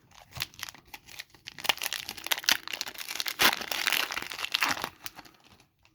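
Wrapper of an Upper Deck hockey card pack crinkling and tearing as it is ripped open, a dense crackle lasting about five seconds that stops near the end.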